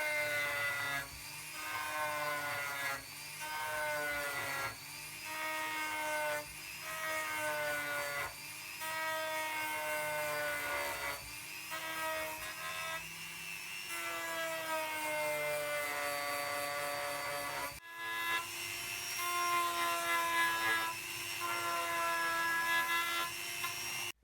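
Small electric drum sander with a homemade 320-grit sanding wheel, rounding off wooden capping edges. Its motor whine sags in pitch each time the drum bears on the wood and rises again as it eases off, every second or two.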